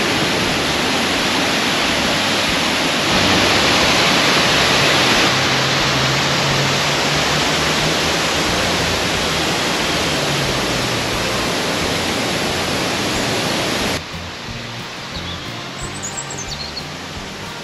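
Kadiyanlena Falls: a steady, loud rush of falling water. Near the end it cuts off suddenly, giving way to quieter background music.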